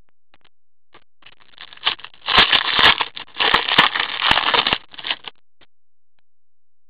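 Foil wrapper of a trading-card pack being torn open and crinkled by hand. The crackling starts about a second and a half in, is loudest for about two and a half seconds, then stops.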